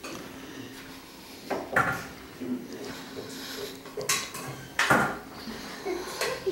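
Several sharp clinks and clatters of hard objects, like dishes or metal knocking together, at irregular intervals about a second or more apart.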